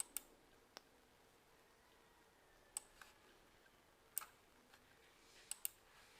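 Scattered computer mouse clicks over near silence: about eight short, sharp clicks, several of them in quick pairs.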